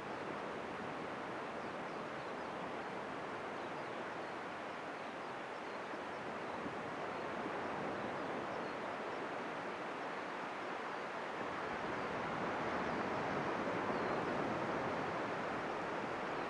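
Steady wash of sea surf breaking on a beach, swelling slightly near the end.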